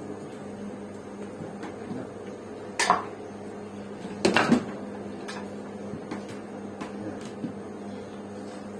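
A few sharp knocks in a small room, one about three seconds in and a quick cluster, the loudest, around four and a half seconds in, over a steady electrical hum.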